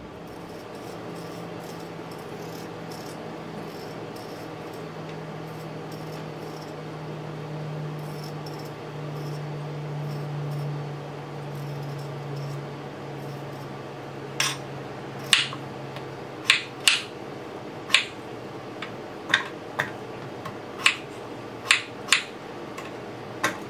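Raw potato being peeled by hand: a dozen or so short scraping strokes, irregularly spaced, starting about halfway through, over a low steady hum that fades out.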